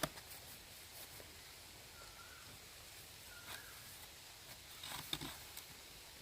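Quiet farmyard ambience with two short, faint bird chirps and a few sharp clicks or knocks, the loudest about five seconds in.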